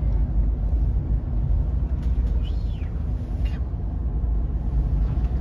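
Steady deep rumble inside the Interislander ferry Kaitaki as it runs through a 6-metre swell, with a brief high squeak that rises and falls about two and a half seconds in.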